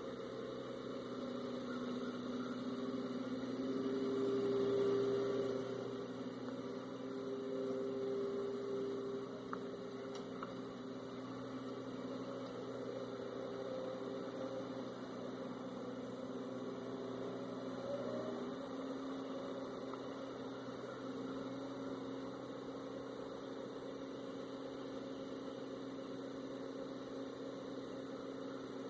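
Small forklift loader's engine running, swelling in loudness twice in the first ten seconds, then running steadily.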